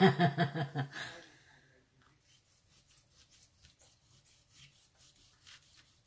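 A woman's voice, laughing, trails off in the first second. After that come faint, scattered rubbing and scratching sounds of a hand brushing bits off a sheet of paper.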